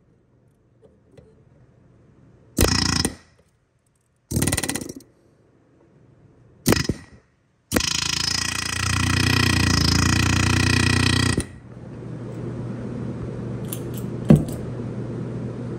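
Pneumatic air tool run in three short bursts, then one longer run of about four seconds, used on the engine's seized bolts. After it comes a steady low hum with one sharp click near the end.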